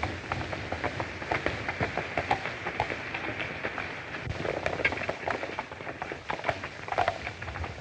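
A horse galloping on a dirt road: a quick, uneven run of hoofbeats.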